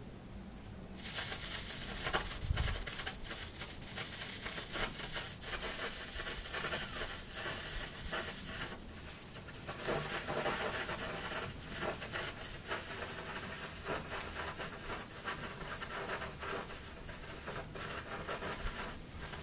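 Flames on a burning computer motherboard crackling and sizzling, a steady hiss dotted with quick pops that starts about a second in.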